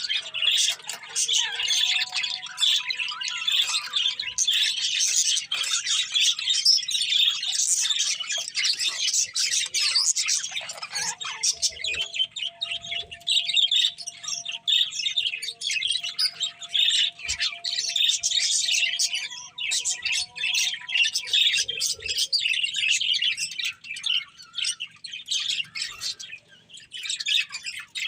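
A pair of budgerigars chirping and chattering nonstop in a rapid, high-pitched stream.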